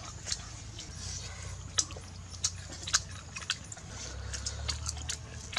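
Close-up eating sounds: people chewing and smacking their lips over soft food, with scattered sharp mouth clicks and a low steady rumble underneath.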